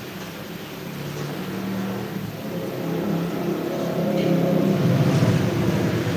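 A motor vehicle engine running steadily, growing louder over the last few seconds.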